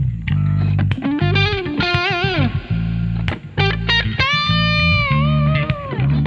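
Live band instrumental: an electric guitar plays a lead line of bent notes with vibrato, including a long held bend in the second half, over steady bass guitar notes.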